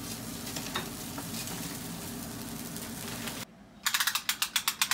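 A steady hiss with a low hum. Then, after a brief drop about three and a half seconds in, a rapid run of sharp clicks, about eight a second, as a steel tape measure is pulled out.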